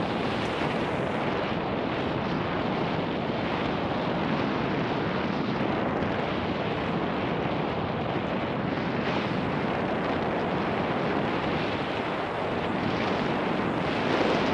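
Steady wind noise on a helmet-mounted camera's microphone as a mountain bike is ridden along a gravel track.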